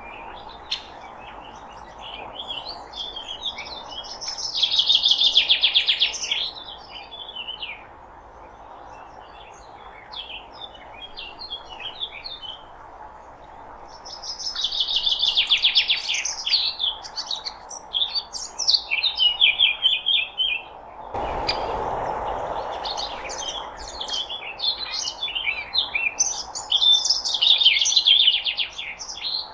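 Several songbirds singing: bouts of rapid trills and chirps, loudest about 5, 15 and 27 seconds in, over a steady background noise that thickens abruptly about 21 seconds in.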